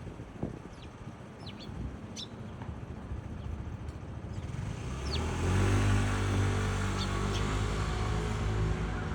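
A motor vehicle's engine grows louder from about halfway through, then runs steadily close by with a low hum. A few short, high chirps are heard over it, more of them in the first half.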